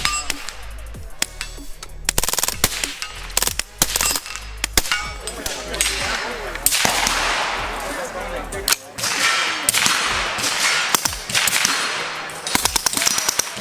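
Gunfire on a shooting range: many sharp shots at irregular intervals, some fired singly and some in quick strings, with ringing after several of them.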